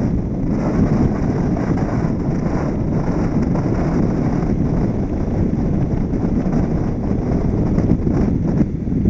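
Wind buffeting the microphone of a camera mounted on the outside of a moving car: a steady low rumble of wind mixed with road noise.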